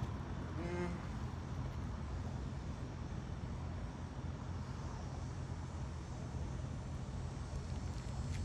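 Steady low background rumble, the kind given by distant traffic or an aircraft, with a brief pitched sound about a second in.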